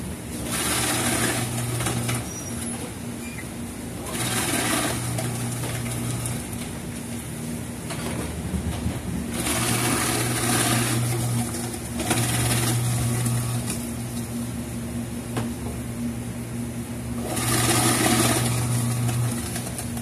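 Electric vegetable-cutting machine running with a steady motor hum as its blades slice green chillies. Four louder spells of cutting noise, each a second or two long, come about a second in, near four seconds, near ten seconds and near the end.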